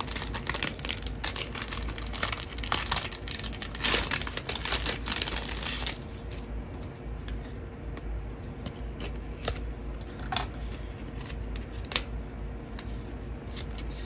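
Thin clear plastic wrapping crinkling and rustling as a photocard in a toploader is unwrapped by hand, busy for about the first six seconds, then only a few light clicks and taps of handling for the rest.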